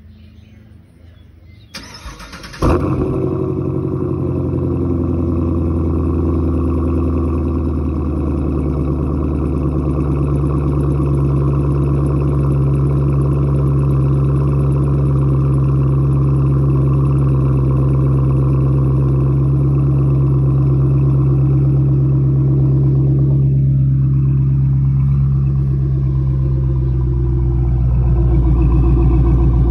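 Chevrolet Camaro SS 6.2-litre V8 through an MBRP cat-back exhaust, started after sitting about 45 minutes: a brief crank about two seconds in, then it fires with a loud flare and settles into a steady idle. The idle gets louder near the end, close to the tailpipes.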